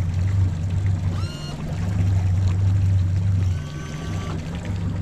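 Mercury outboard motor idling just after a start, a steady low drone that dips briefly about a second in and eases off after about three and a half seconds. A few brief high chirps sound over it.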